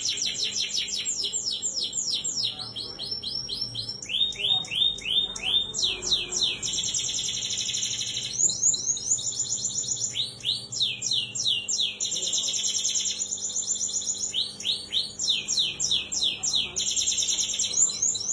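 Yellow domestic canary singing continuously in full song. Fast rolling trills alternate with runs of quickly repeated downward-sweeping notes, about three a second, changing phrase every second or two.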